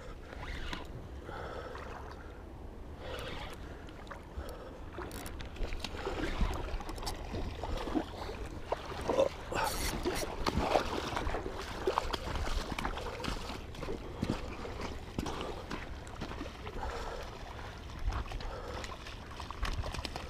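Irregular water splashing with scattered knocks, clicks and rustling, busiest through the middle, while a hooked coho salmon is played and brought in at the river's edge.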